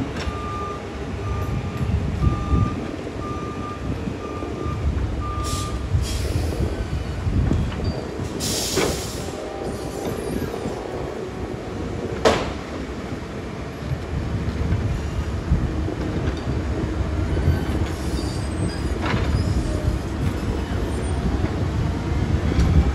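Concrete mixer truck's reversing alarm beeping about eight times at one steady pitch over the low rumble of its diesel engine, the beeping stopping after about six seconds. A short hiss follows a few seconds later, then a single sharp clack.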